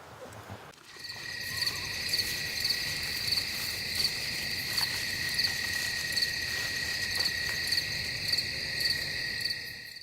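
Insects chirping and trilling steadily in chorus, with a regular pulsing call about three times every two seconds; it starts abruptly about a second in.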